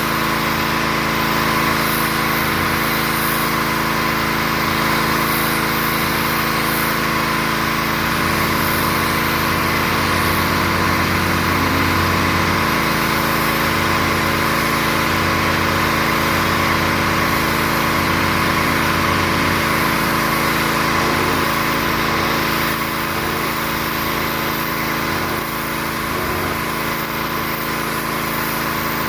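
A pressure washer's small engine and pump running steadily under load, with a broad hiss over the engine note. The level drops slightly late on.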